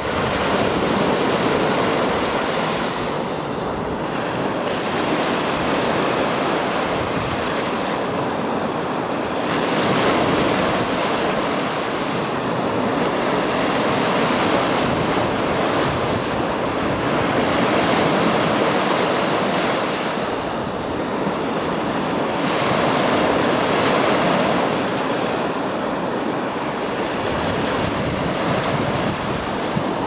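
Small freshwater lake waves breaking and washing up on a sandy, boulder-strewn shore: continuous surf that swells and eases every several seconds.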